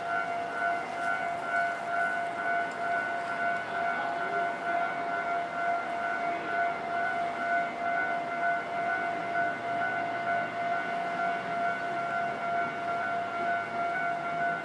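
Japanese railway level crossing's electronic warning bell ringing in a steady, rapidly repeating tone, signalling that a train is approaching.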